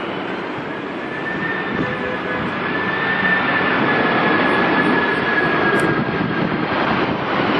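Boeing 767-300ER jet airliner on final approach with landing gear down, its twin-engine roar growing louder as it nears, with a thin high whine held over the roar through the middle.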